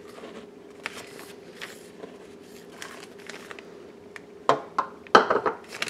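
Plastic bag of powdered sugar crinkling and rustling as it is tipped into a stand mixer's steel bowl, with a few louder taps and rustles in the last second and a half.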